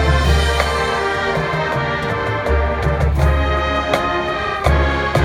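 Marching band playing: loud brass chords over held low bass notes, punctuated by sharp drum hits.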